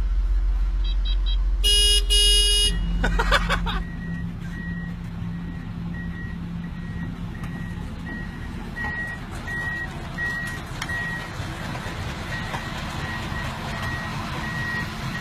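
A Cat skid steer's engine running with a deep rumble, with a brief loud high tone about two seconds in and a short clatter after it. Then construction machinery runs steadily while a warning alarm beeps evenly, about three beeps every two seconds.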